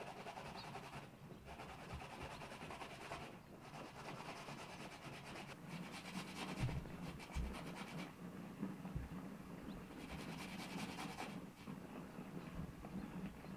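Raw pumpkin being grated on a metal box grater over a metal plate: a steady run of rasping strokes with brief pauses every couple of seconds. A few dull thumps come in the middle.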